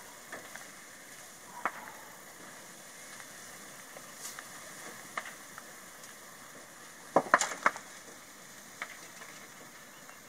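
A truck fire burning: a steady crackling hiss with scattered sharp pops, and a quick cluster of loud pops about seven seconds in.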